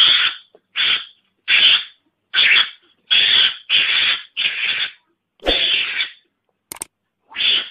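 Mongoose lure call: a Javan mongoose's harsh, hissing calls repeated a little more than once a second. Near the end, after a short gap, come a couple of sharp clicks.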